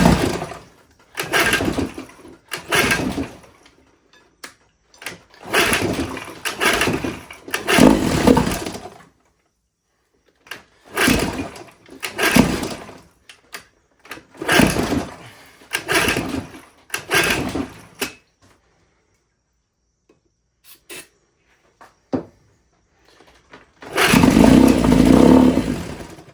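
1969 Johnson 9.5 hp two-stroke outboard being pull-started: about a dozen short cord pulls in groups, each a second or less. Near the end the engine catches and runs for about two seconds.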